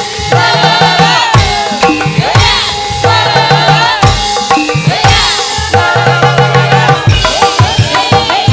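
Javanese gamelan music: sustained metallophone tones over regular kendang hand-drum strokes, with a sinden's gliding sung line above.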